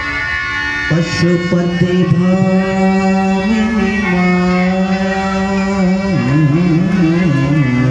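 Devotional bhajan: a man singing with harmonium and tabla. The harmonium holds steady chords under the voice, a new phrase comes in about a second in, and the singing turns to wavering, ornamented runs in the second half.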